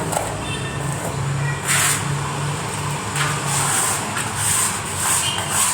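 A motor running steadily with a low hum, with several short hissing noises over it.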